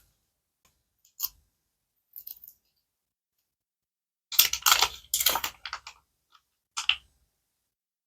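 Surprise-toy packaging being handled and unwrapped: a sharp click, a soft rustle, then a loud burst of crinkling about four seconds in lasting nearly two seconds, and another short click near the end.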